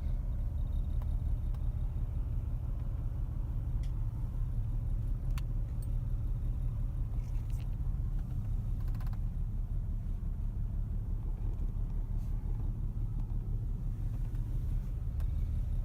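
Steady low rumble of a car heard from inside the cabin, with a few faint clicks and light rattles.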